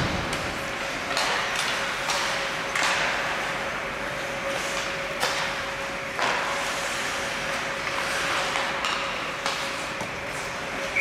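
Ice hockey play: skates scraping on the ice with sharp knocks of sticks and puck every second or two, over a steady faint hum.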